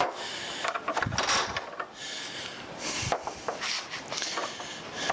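A wooden block and hand tools being handled on a workbench: a series of light knocks with brief scrapes and rubs of wood on wood.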